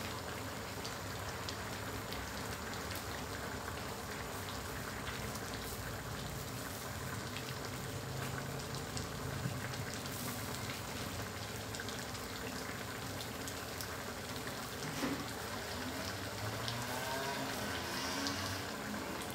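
Coconut-milk chicken curry simmering in a steel pan: a steady crackly bubbling with scattered small pops.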